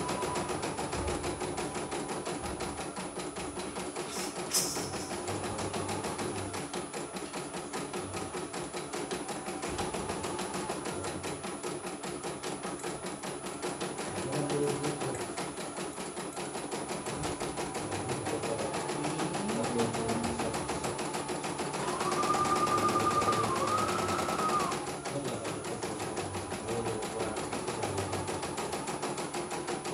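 CNY E900 computerised embroidery machine stitching a design, its needle going up and down in a fast steady rhythm as the hoop moves the fabric. A sharp click comes about four seconds in, and a louder wavering tone rises over the stitching for a couple of seconds about twenty-two seconds in.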